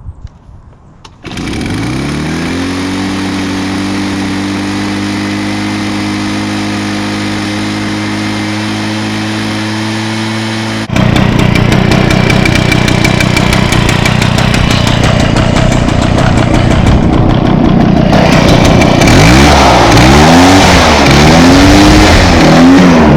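Echo PB500T backpack leaf blower's 50.8 cc two-stroke engine catching about a second in, rising and settling into a steady idle. About eleven seconds in it jumps to a louder, faster run. Near the end its speed swings up and down several times.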